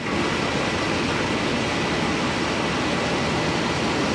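Steady machine noise with a faint high whine: an automatic candle-making machine running, its drive motor turning and a large fan blowing over the wax tank.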